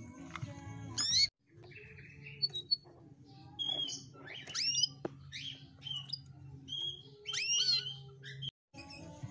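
Domestic canary hen calling: a scattered series of short chirps and quick rising whistled 'tweet' calls, over a low steady hum.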